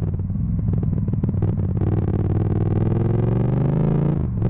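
Yamaha MT-07's 689 cc parallel-twin through a full Akrapovic titanium exhaust, running at low revs with an uneven crackle, then revving up with a rising note from about two seconds in, with a brief dip near the end. Heard through an overloaded, distorting camera microphone.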